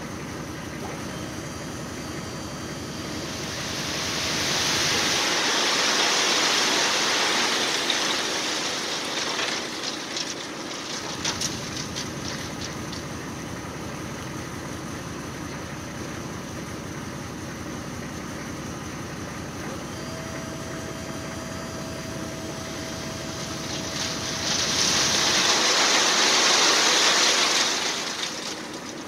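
Dump truck engine idling, with two long rushes of rock sliding and pouring out of the tipped-up bed, the first with a few sharp clatters of stones near its end.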